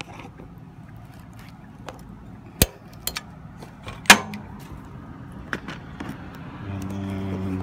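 Sharp metallic clicks and knocks of tools and hardware handled against a streetlight fixture's sheet-metal mounting plate and ballast, the loudest about four seconds in. A low steady hum with several even tones sets in near the end.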